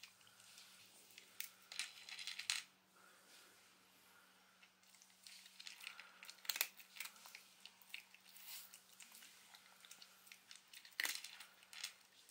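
Dry dog kibble clicking as it is picked off a plate, and a Shiba Inu crunching the pieces, in scattered sharp clicks and crunches: a cluster about two seconds in, one around six and a half seconds, and a couple near eleven seconds.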